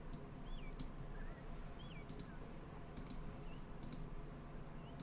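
Computer mouse clicking, a few sharp clicks, several in quick pairs like double-clicks, over a quiet room background.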